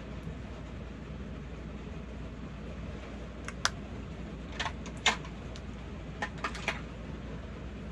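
Steady hiss of heavy rain, with a cluster of small sharp clicks and taps about halfway through, the loudest a little after five seconds in: plastic makeup or hair items being handled.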